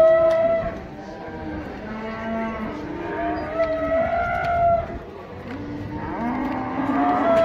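Young cattle mooing: about four long calls in turn, some high-pitched and some deep, each lasting one to two seconds.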